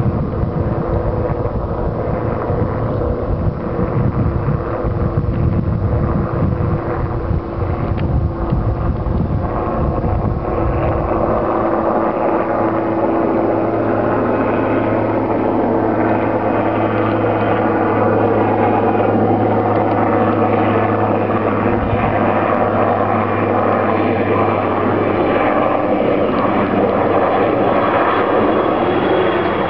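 Aérospatiale SA-315 Lama helicopter flying at a distance, a steady engine and rotor sound. Wind rumbles on the microphone for about the first ten seconds, then a steady low hum comes through more clearly.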